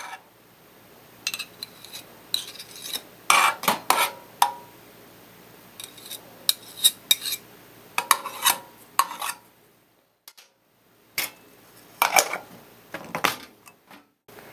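Metal spoon scraping and clinking against the inside of a tin can while scooping out thick gelled alcohol fuel and tapping it into a small tin. The clinks come in irregular clusters with short pauses between.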